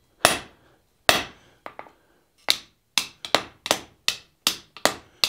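Hand hammer striking a hot half-inch round steel bar held in an open forging die on the anvil: about a dozen sharp blows, each with a short ring, spaced out at first and then quickening to about three a second in the second half, driving the hot metal into the die impression.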